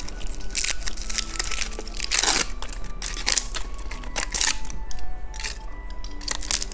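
Plastic candy packaging crinkling and tearing as it is handled and opened, in irregular sharp rustles.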